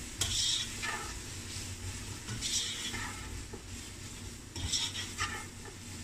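Shredded vegetables sizzling in hot oil in a non-stick pot while a slotted spatula stirs and scrapes them, with several scraping strokes over the steady sizzle.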